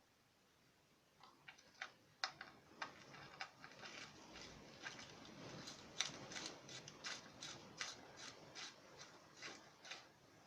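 Faint, irregular light clicking and ticking, many short sharp clicks starting about a second in, most frequent in the middle and dying away near the end.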